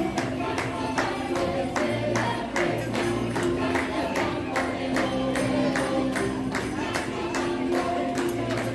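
Upbeat dance music with a steady quick beat, about three beats a second, and singing.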